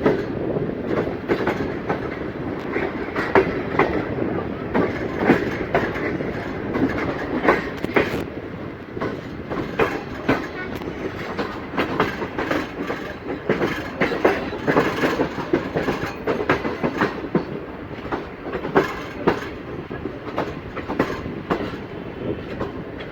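Passenger train's wheels rolling along the track, clacking irregularly over rail joints as it arrives at the station, over a steady rumble.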